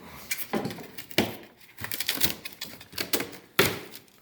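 Cardboard box and packing being handled and pulled open: a string of scrapes, rustles and clicks, about one loud scrape a second.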